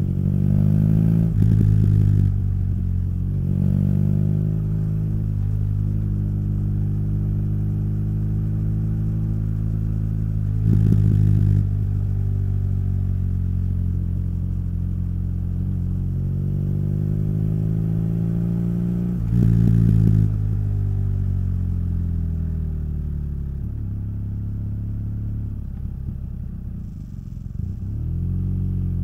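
Motorcycle engine and exhaust under way: the engine note climbs and drops several times as it accelerates and changes gear, then falls away steadily as it slows, with a short dip and rise near the end.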